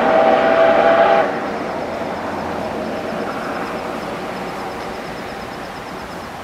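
D51 498 steam locomotive's whistle blowing a long held blast of several tones that cuts off about a second in, followed by the steady running noise of the train, slowly fading as it moves away.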